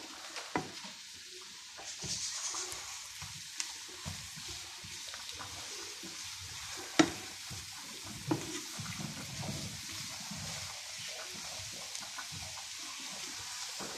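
Sliced mushrooms and chopped spring onion frying in olive oil in a non-stick pan: a soft, steady sizzle. A few sharp knocks from stirring come through it, the loudest about halfway through.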